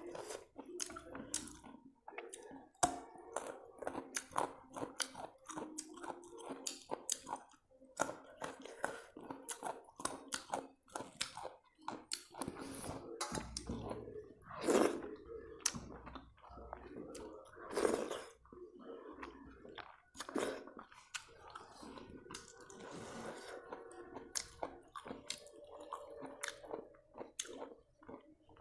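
Chewing and wet mouth sounds of a person eating rice and soup by hand, with many small clicks and squishes as her fingers mix the rice on a steel plate. Twice, about halfway through, a louder mouth sound stands out.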